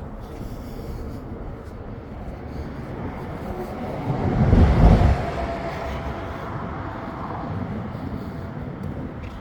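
A vehicle passing close by: a steady rumble that builds to its loudest about halfway through and then fades away.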